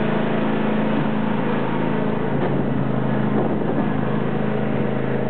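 John Deere tractor engine running steadily while driving, its tone shifting about two seconds in, over a rush of storm wind.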